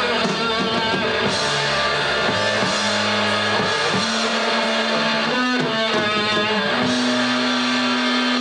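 Heavy metal band playing live: distorted electric guitars, bass and drums, with long held low notes that change every second or so.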